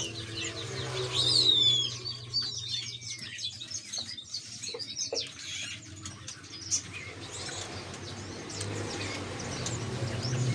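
Many caged songbirds chirping and twittering at once, a dense mix of short calls and quick whistled notes that slide up and down. A low steady hum sits under the birds at the start, fades, and comes back near the end.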